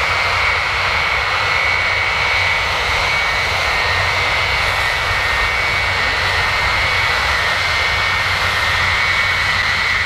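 Boeing E-3A Sentry's four TF33 turbofan engines running steadily as the aircraft taxis past: a loud, even jet noise with a steady high whine over a low rumble.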